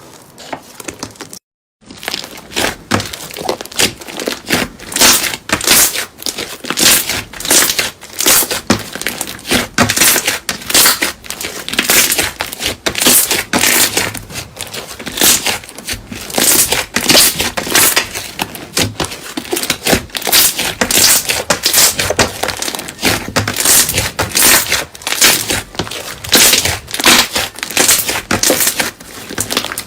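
Slime being squeezed and pressed by hand, giving a dense, continuous crackling and crunching, with a brief gap about one and a half seconds in.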